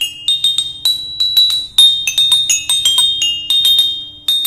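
Toy xylophone being struck with a mallet: quick, irregular high, bright notes, about three or four a second, each ringing briefly, with a short pause near the end.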